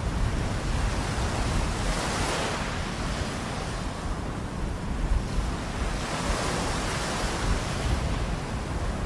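Small waves washing onto the beach, their hiss swelling twice, with wind rumbling on the microphone throughout.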